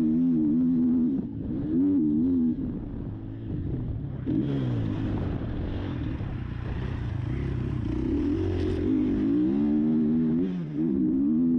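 KTM motocross bike engine revving up and down as the throttle is opened and closed around the track. The pitch drops off a couple of seconds in, stays lower for several seconds, then climbs again near the end.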